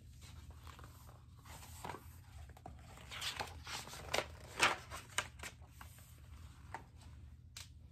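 Paper rustling softly as a picture book's page is turned, a cluster of brief crackles and flaps about halfway through.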